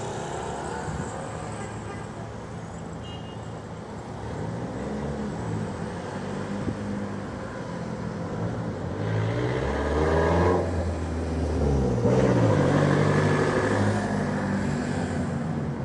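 Street traffic: several motor vehicles running and moving, with engine notes rising and falling. A heavier vehicle with a deep engine note is loudest close by between about 9 and 12 seconds in.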